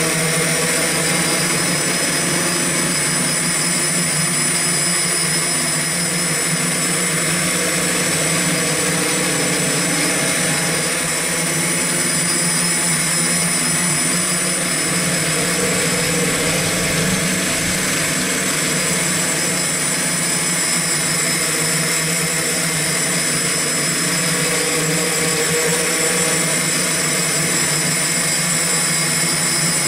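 X8 multirotor copter's eight electric motors and propellers running in steady flight, picked up by the camera on board: a constant drone with several steady high-pitched whines over it.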